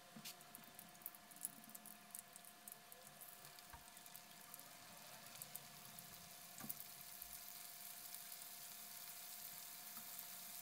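Cornstarch-coated ribbon fish frying in hot oil in a wok: faint crackling and sizzling that starts as the fish goes in and builds toward a steadier sizzle.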